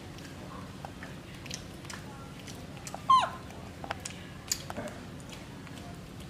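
A baby macaque gives one short, loud squeal about three seconds in, falling steeply in pitch. A few faint clicks come before and after it.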